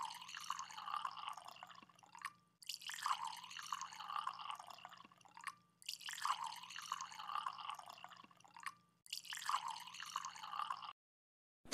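Coconut wine (tuba) pouring in a thin stream onto a whole raw chicken in a metal pot, splashing and trickling. The pouring breaks off briefly three times and stops about a second before the end.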